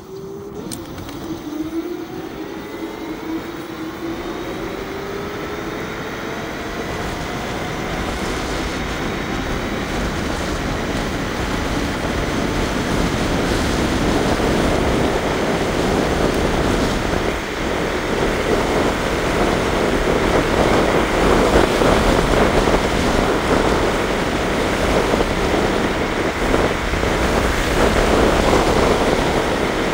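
Bluetran Lightning's electric motor whining and rising in pitch as it pulls away from a standstill under full power, then a steady rush of wind over the microphone that grows louder as it nears top speed.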